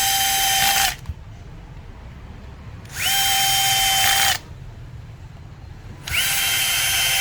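Small power drill driving screws into a socket board: three short runs, each spinning up quickly to a steady whine and winding down.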